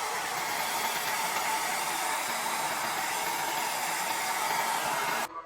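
Hair dryer blowing steadily with a faint whine, switched off abruptly near the end.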